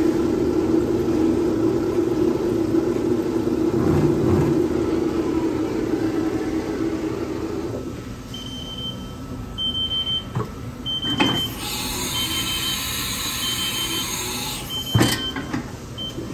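2002 Haas TM2 CNC mill running with a steady machine hum that drops away about eight seconds in. It is followed by a string of short high beeps about a second apart, two sharp knocks and a few seconds of hiss.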